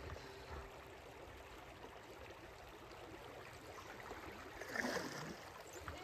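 Shallow stream water rippling and trickling over rocks around a moving kayak, with a louder splash about five seconds in.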